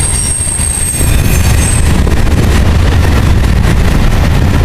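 Covered hopper cars of a freight grain train rolling past, their wheels rumbling steadily on the rails. A high wheel squeal fades out within the first two seconds.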